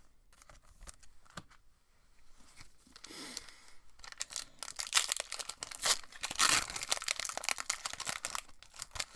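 A foil Pokémon Evolutions booster pack wrapper being torn open and crinkled, starting about four seconds in after a few light handling clicks.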